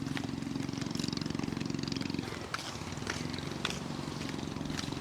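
A small engine running steadily with a rapid low pulsing note, which eases and shifts pitch about two seconds in, with scattered light ticks over it.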